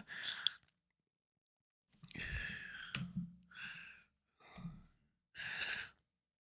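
A man's quiet sighs and breaths close to the microphone: about five short breathy exhalations with gaps of near silence between them.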